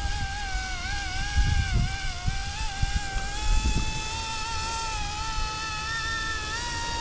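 YuXiang F09-S scale RC helicopter's electric motors and rotors whining in a hover, the pitch wavering for the first few seconds, then settling slightly higher and steadier. Gusts of wind buffet the microphone in the first half.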